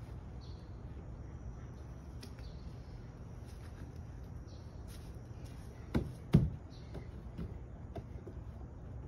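Two dull thumps close together about six seconds in, the second the louder, over a steady low outdoor rumble with faint high chirps.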